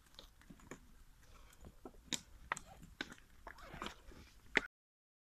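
Irregular light slaps, scuffs and clothing rustle from two people grappling hand to hand, with sharp clicks of contact scattered throughout; it cuts off suddenly about four and a half seconds in.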